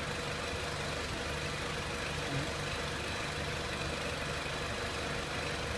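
2003 Renault Clio 1.6 petrol engine idling steadily.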